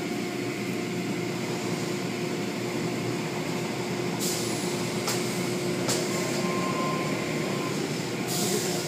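Automatic tunnel car wash running: a steady mechanical hum and rush from the brushes, cloth curtains and water. Short hissing bursts of spray come about four, five and six seconds in and again near the end.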